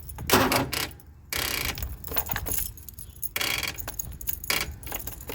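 Keys jangling in a lawnmower's ignition in several short rattling bursts as the key is turned in a start attempt. The engine does not catch: the battery is run down by the lights.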